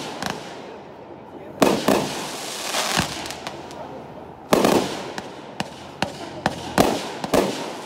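Consumer aerial firework shells bursting overhead: three loud bangs, about a second and a half, four and a half, and seven seconds in. Each bang trails off in an echo, and a scatter of smaller sharp cracks and pops comes between them.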